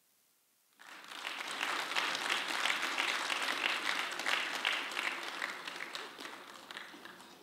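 Audience applauding, starting abruptly about a second in and fading off near the end.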